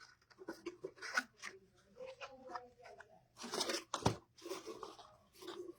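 Satin ribbon being handled and cut: irregular crinkling and rustling with a few crisp scissor snips.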